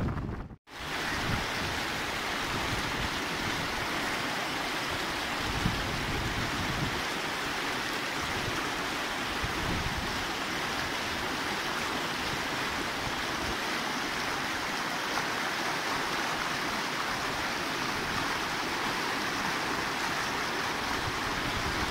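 River rapids rushing and churning around a wooden dugout canoe: a steady, even rush of whitewater, cut off briefly about half a second in.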